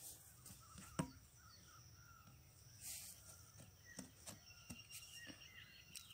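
Near silence: faint outdoor ambience with a few faint high chirps and one sharp click about a second in.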